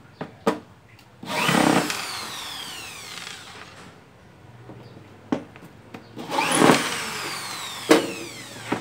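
Cordless drill/driver backing out the casing screws of a TIG welder. It runs twice in short bursts, about a second in and again about six seconds in, and each time its motor whine falls as it spins down. A few sharp clicks come in between.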